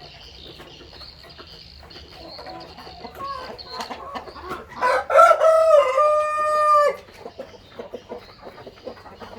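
A Brahma rooster crows once, about two seconds long and ending in a long held note, with hens clucking softly before and after.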